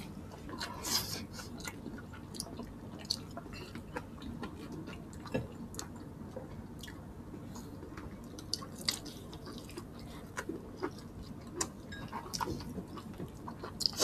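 Close-miked eating sounds: two people chewing soft pork, rice and vegetables eaten by hand, with scattered small wet clicks and lip smacks.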